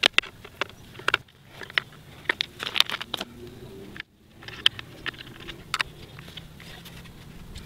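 Irregular clicks and taps of a screwdriver and metal dibble spikes against the plastic rim of a wheel dibbler as the spikes are screwed on, with a short break about four seconds in.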